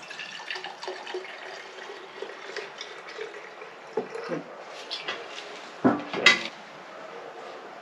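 Liquid being poured from a metal spouted can into the tank of a Stanley chainsaw, then two loud metallic clunks about three-quarters of the way through as the can is set down on the floor.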